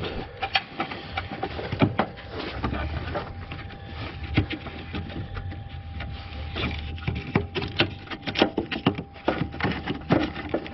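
Irregular clicks, taps and rustles of a plastic wiring connector and its harness being handled and turned around by hand, over a faint steady hum.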